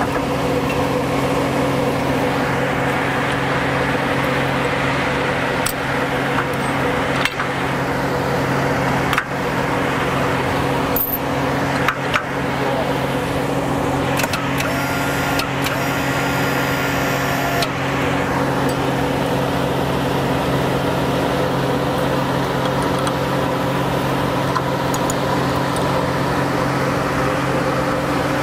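Diesel engine of a Foretravel motorhome idling steadily behind its rear grille, with a few sharp metal clicks and clanks from hitch pins, clips and safety chain being fitted.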